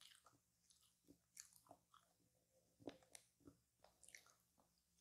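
A person chewing coconut tart close to the microphone: faint, irregular mouth clicks and small crunches.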